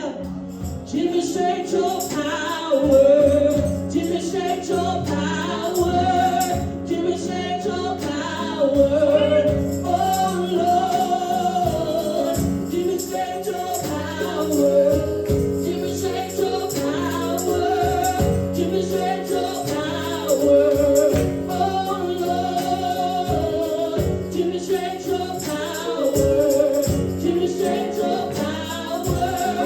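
Gospel praise-and-worship music: a choir or congregation singing over a band with a steady percussion beat.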